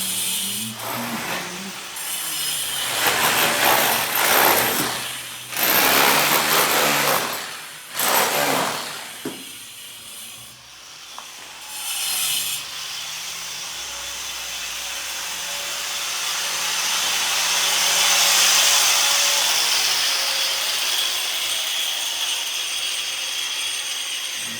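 Tool working building material: several rasping strokes a second or two long, then a long steady rasp that swells and eases off.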